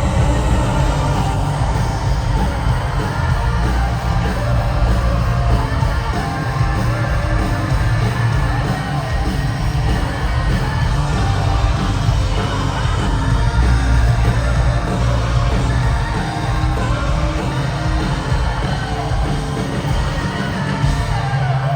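Live rock band playing loudly in a hall, with a singing voice and shouts from the crowd over the music.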